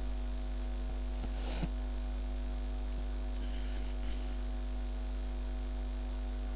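Steady electrical mains hum in the recording, with faint regular high ticking at about five a second.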